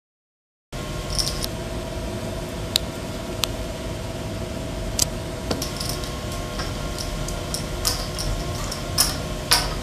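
A handful of sharp clicks from playing cards and poker chips being handled on a card table, scattered a second or so apart over a steady room hum.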